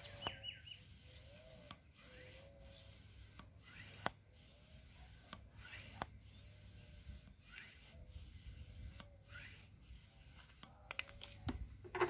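Faint rubbing and handling noises with scattered light clicks and soft short squeaks every second or two, over a low hum.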